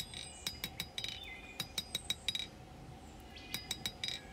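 Hammer blows on a small piece of hot, thin blade steel on an anvil, drawing out the bevel: quick runs of light strikes, each with a short metallic ring, with a pause of about a second midway.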